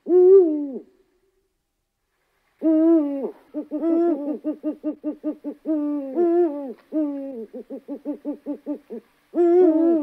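An owl hooting: one call falling in pitch at the start, then after a pause a long run of hoots, longer notes mixed with quick short ones about five a second, and another falling call near the end.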